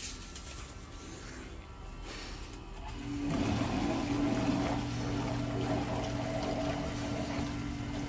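Oil boiler's forced-draft burner starting up about three seconds in: its motor and blower fan come up to a steady hum and keep running. The air intake has just been cleared of a plastic bag that was sucked into it and causing an odd noise.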